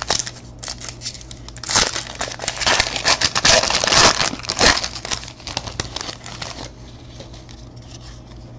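Foil wrapper of a trading card pack being torn open and crinkled: a dense crackling lasting several seconds, loudest about halfway through, with a few light clicks before it.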